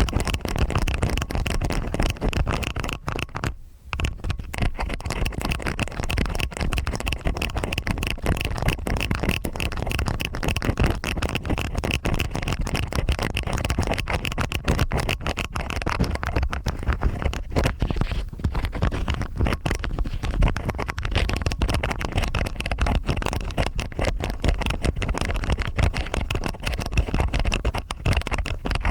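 Stainless-steel ear picks scraping and scratching inside both ears at once, a dense run of rapid close-up scritching clicks with a brief pause about three and a half seconds in.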